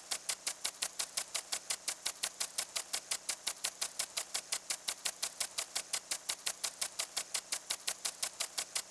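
Impact lawn sprinkler ticking, with a spray hiss on each strike at about five or six strikes a second, the arm knocking the water jet as the head turns. It cuts off suddenly at the end.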